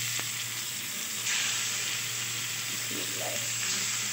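Green-masala-coated fish pieces sizzling as they shallow-fry in oil in a pan; the sizzle steps up about a second in as another piece goes into the oil. A steady low hum runs underneath.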